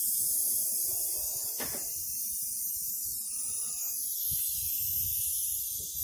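A steady high hiss, with a few faint low knocks and rustles underneath and one short click.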